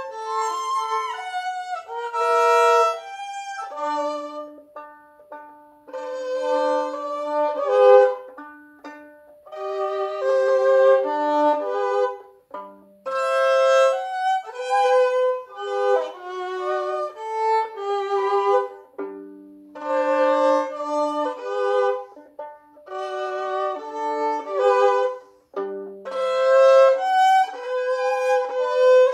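Solo violin, bowed: a melody played in short phrases with brief pauses between them, now and then dropping to a low note near the bottom of the violin's range.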